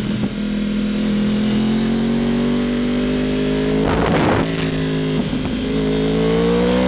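Yamaha R1 motorcycle engine running on the road under steady acceleration, its pitch climbing slowly and dipping briefly at a few gear changes. A brief rush of noise about four seconds in.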